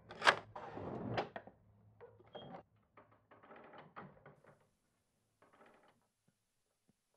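A run of sharp clicks and crackles, loudest in the first second and a half, growing sparser and fainter until they die out about four seconds in, then near silence.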